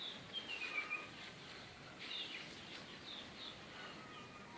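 Bulbuls chirping faintly: short high calls, with a falling run of notes about a second in and scattered chirps after.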